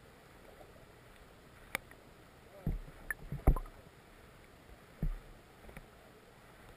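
Shallow river heard from just under the water: a faint steady hiss, broken by a few sharp clicks and muffled low thuds, the loudest about three and a half seconds in.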